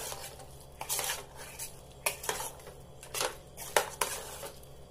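Metal spoon stirring a thick vegetable mixture in a metal pressure cooker, scraping and clinking against the pot in about eight irregular strokes.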